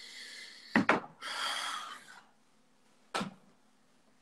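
Breathing close to a phone's microphone, two breathy hisses, with a sharp double knock about a second in and a single short knock about three seconds in, the small knocks of a phone or desk being handled.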